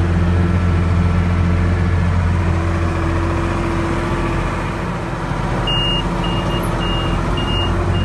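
Case 5140 Maxxum tractor's diesel engine running steadily, heard from inside the cab while it pulls a round baler. Near the end an electronic alarm starts beeping, about two high beeps a second.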